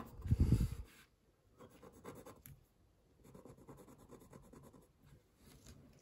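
Fine-tip pen scribbling on watercolour paper, heard as several short runs of faint scratching, after a dull bump about half a second in.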